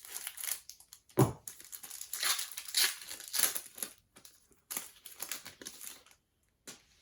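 Foil trading-card pack wrapper being torn open and crinkled, with one thump about a second in. The crackling stops about a second before the end.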